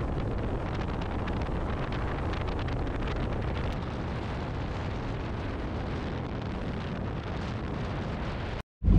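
Steady rush of wind buffeting the microphone and water streaming past the hull of a motorboat running at speed. It cuts off suddenly near the end.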